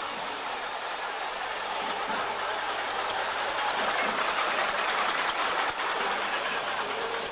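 Single-deck diesel bus driving slowly past close by, the engine sound swelling as it comes nearest about four to five seconds in, then easing as it pulls away.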